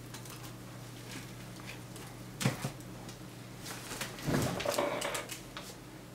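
A person chewing a mouthful of an Italian sub sandwich: faint, scattered wet mouth sounds, with a sharper smack about two and a half seconds in and a louder stretch of chewing around four to five seconds.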